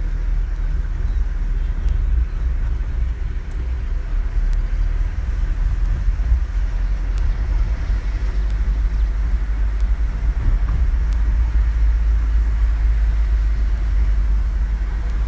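Steady low rumble of a moving car heard from inside its cabin: engine and tyre noise on the road.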